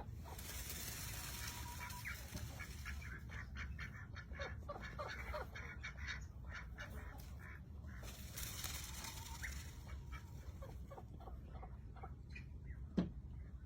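Peafowl calling in a series of short honking notes, with one louder call near the end. Two stretches of high hissing noise come in, at the start and about two-thirds of the way through.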